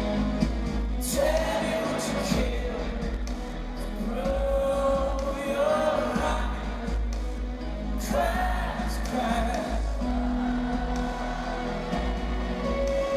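Live rock band playing at high volume, with a sung vocal line of long held, wavering notes over heavy bass.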